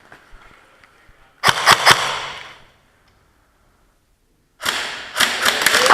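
Airsoft guns firing indoors: a quick string of sharp shots about a second and a half in, then the sound cuts out completely for nearly two seconds, and more rapid shots and clatter start again near the end.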